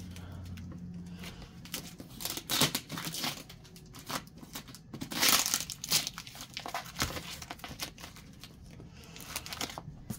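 Cardboard box being pulled apart by hand, crinkling and tearing in irregular bursts, loudest about two and a half seconds in and again around five to six seconds in.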